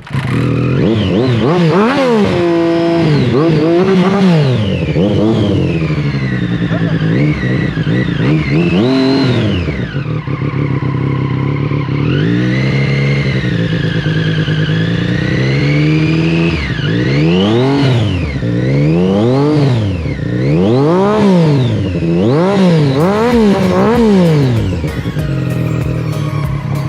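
Triumph Street Triple's three-cylinder engine, with an SC Project aftermarket exhaust, revved over and over just after starting on a flat battery. It climbs and falls through a few long revs, then blips quickly, about once a second, in the second half.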